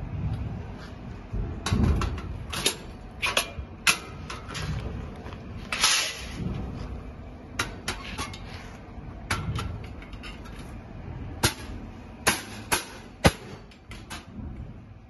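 Gold-plated hollow square iron tubes clinking and knocking against each other as frame sections are handled and fitted together, a series of irregular sharp metallic clicks over low rumbling handling noise, with a short scraping rasp about six seconds in.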